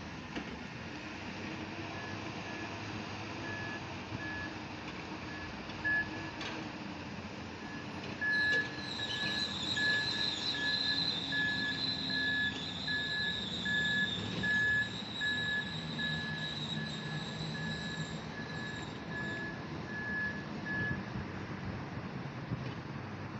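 Junttan PMX22 pile driving rig running, its diesel engine humming while a travel or reversing alarm beeps steadily about twice a second. From about a third of the way in, a high squeal joins for roughly ten seconds and then fades before the beeping stops.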